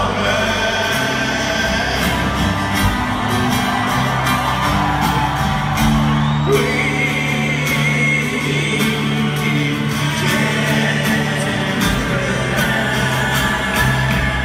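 Rock band playing live in an arena, with the lead singer's voice over the band, heard from high up in the stands.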